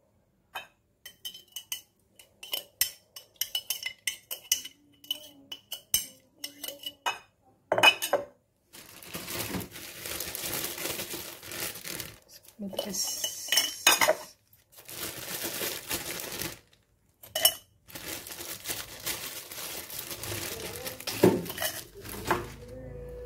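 Metal spoon clinking and scraping against a glass bowl and glass jar while sticky brown-sugar boba pearls are scooped into the jar, many quick light clinks. After that come several stretches of rustling noise with a few knocks while ice cubes are added to the jar.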